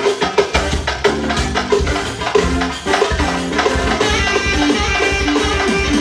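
Loud music with a steady beat of drums and percussion and a melody line over it.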